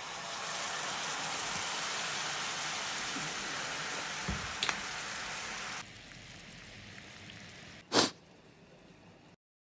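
Pancake syrup sizzling in a hot cast-iron skillet: a steady hiss that cuts off suddenly about six seconds in. A single brief loud burst follows near the end.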